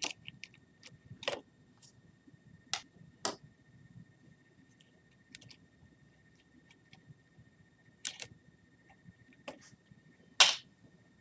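Plastic clicks and knocks of a Logitech Harmony H659 universal remote being taken apart by hand, as its front shell and rubber keypad are lifted off the circuit board. The clicks come at irregular times, and the loudest is near the end.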